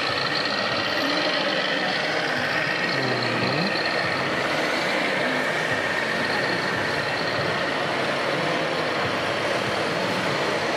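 Radio-controlled scale model tractor running while it pushes soil, a steady mechanical noise with a thin, constant high whine over it.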